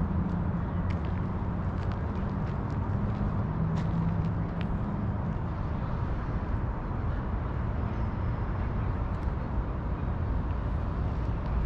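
Steady low rumble of road traffic, with an engine hum in the first few seconds that fades out about halfway through. A few faint footsteps tick over it.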